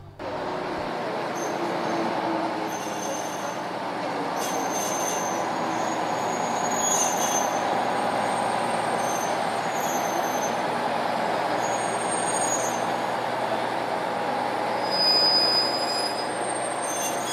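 General Electric center-cab diesel locomotive and its train rolling slowly, with brakes squealing in thin high tones off and on, loudest near the end. The squeal is metal on metal, which the riders take for brake shoes worn through to the rivets.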